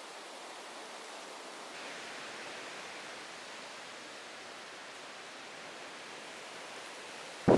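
Steady, even hiss of ocean surf washing on a beach. A sudden loud burst of noise breaks in at the very end.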